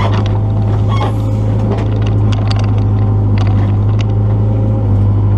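Excavator's diesel engine running steadily under load with a deep, constant hum, and scattered short knocks and cracks over it.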